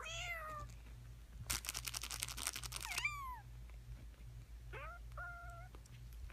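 Four-week-old kittens mewing: a high, falling mew at the start, another just after three seconds, and two short mews near the end. In between, about a second and a half of rapid scratchy clicking.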